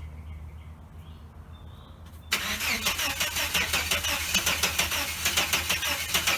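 Starter cranking the 1989 Chevrolet S10 Blazer's engine, which turns over rapidly but does not catch. After a short pause, the cranking starts again suddenly about two seconds in.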